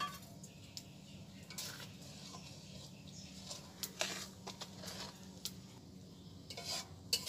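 A metal spatula scraping and knocking against the side of a karai (wok) while a thick simmering milk mixture is stirred, in short, irregular clinks and scrapes over a low steady hum.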